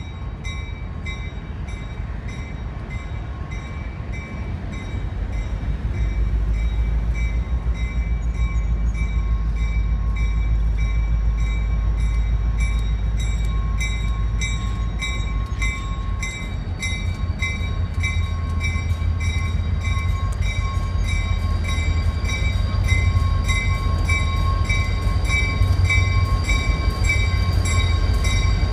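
Diesel locomotive engine rumbling as the train approaches slowly, growing louder about a quarter of the way in and again later as it draws near. Over it, bells ring steadily about twice a second, and the strikes come denser in the second half as a second bell seems to join.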